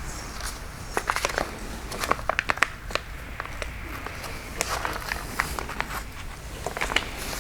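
Handling noise from a rubbing-compound packet being opened and squeezed onto a pad: irregular crinkling of the packet and scattered sharp clicks.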